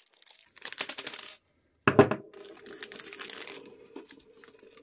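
Plastic packaging rustles, then about two seconds in a small metal tool attachment drops onto a hard surface with a sharp clink and rings on with a steady metallic tone.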